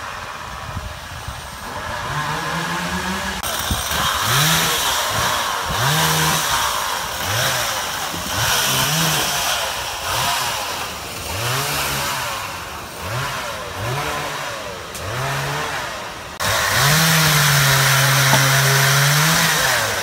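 Two-stroke chainsaw revved repeatedly in short throttle bursts, its pitch rising and falling each time, then held at full throttle for about three seconds near the end while cutting branches of the fallen poplar.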